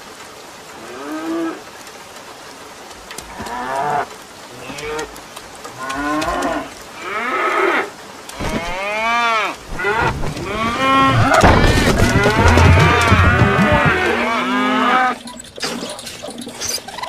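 Cartoon animal voice giving a run of moo-like calls, each rising and falling in pitch. The calls come closer together and merge into a louder stretch past the middle, then break off near the end.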